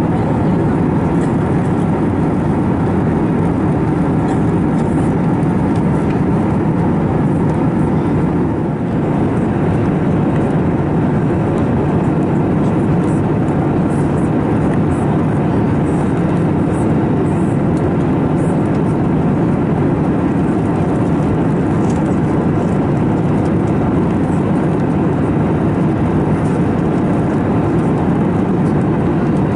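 Steady cabin noise of an Airbus A321neo in flight: a constant deep rush of airflow and engine sound, with a few faint steady tones above it.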